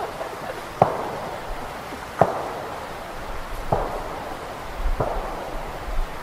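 Five sharp distant knocks, about one every second and a half, each ringing out briefly, over a steady outdoor hiss. The recordists hear this kind of sound as huge boulders being smashed together far up a mountain.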